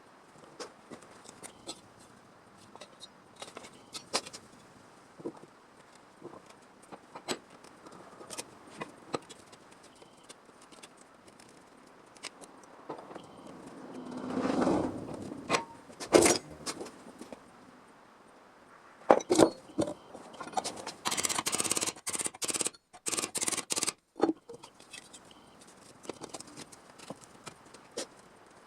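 Hand-work noises from bodywork fabrication: scattered light clicks and taps, a short scraping swell about halfway through, sharp knocks, and a few seconds of louder rasping noise near the end that cuts off abruptly.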